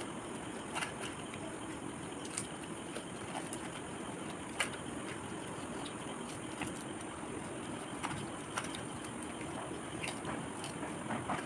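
Crisp fuchka (pani puri) shells cracking and crunching as they are broken open with the fingers and eaten, a dozen or so short sharp snaps at irregular intervals over a steady background noise.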